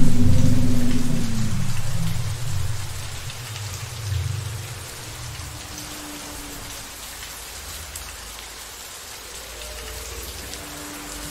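Steady rain from a thunderstorm recording, with a deep low rumble that is loud at the start and fades away over the first four seconds or so.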